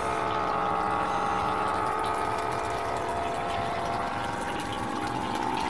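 Electric tubewell pump running with a steady hum and the rush of water through its iron delivery pipe and into a tank. The well is being run to flush its water clear.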